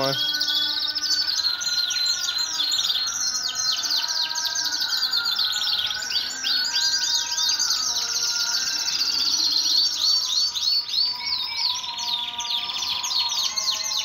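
Many caged domestic canaries singing at once: dense, rapid trills and chirps overlapping without a break.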